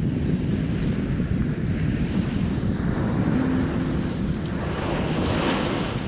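Small sea waves breaking and washing up a coarse sand and pebble shore, with a hiss of surf that swells about five seconds in as a wave runs up the beach. Wind buffets the phone's microphone as a steady low rumble.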